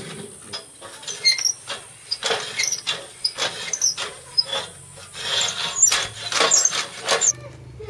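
Homemade steel handcycle steering linkage (tie rod, steering arms and fork pivots) squeaking and clicking in an irregular run of metal-on-metal scrapes and knocks as the steering is worked back and forth by hand. The sound stops suddenly shortly before the end.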